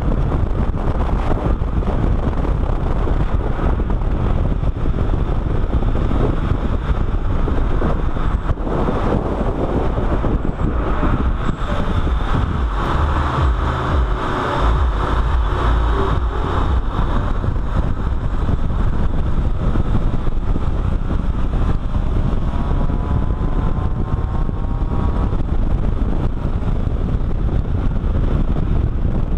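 A car driving at speed on a track, heard as steady wind buffeting on the microphone and tyre and road roar with the engine underneath. A faint rising engine note shows about three-quarters of the way through.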